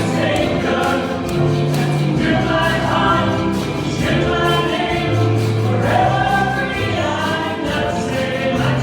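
Choir singing a gospel hymn over instrumental accompaniment, with long held low notes under the voices and a steady beat.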